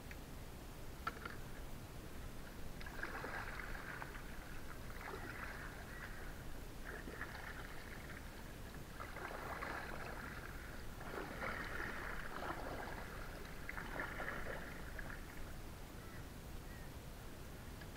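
Kayak paddle strokes: the blades dip and splash in calm water about every two seconds, six strokes or so, then stop a few seconds before the end.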